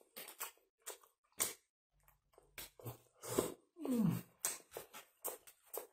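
Close-up eating sounds of a kebab sandwich being bitten and chewed: a run of wet mouth smacks and clicks, with a brief falling hum about four seconds in.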